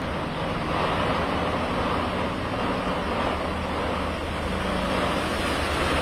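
Vehicles driving on a rain-soaked road: a steady hiss of rain and tyres on water, with a low engine hum underneath.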